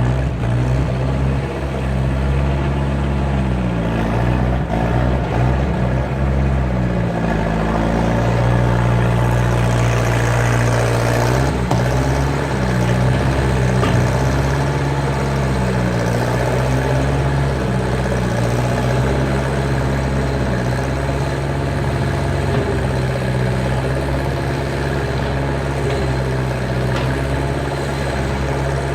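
Skid steer engine running under work, its pitch rising and falling for the first several seconds and then holding steady, with an occasional faint knock.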